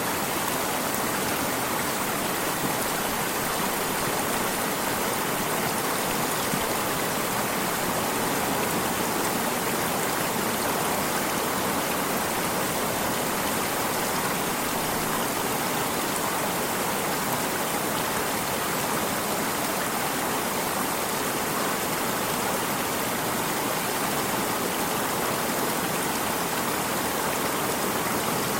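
Water running in a stream: a steady, even rush with no pauses or changes.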